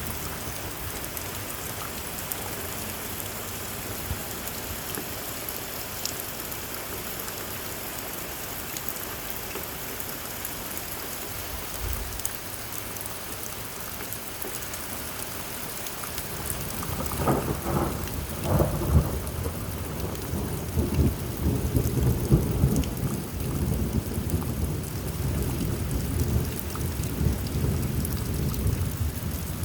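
Heavy rain falling steadily, with a clap of thunder a little past halfway that cracks loudly and then rolls on as a low rumble to the end.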